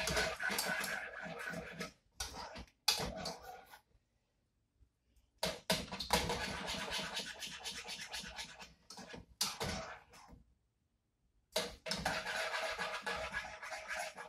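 Wire whisk beating thick cheese sauce in a nonstick saucepan, rapid scraping strokes against the pan in several bouts broken by short pauses.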